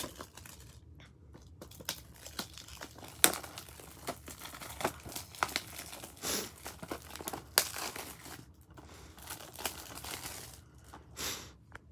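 Plastic shrink-wrap crinkling and tearing as it is peeled by hand off a Blu-ray case, in irregular crackles with a few short pauses.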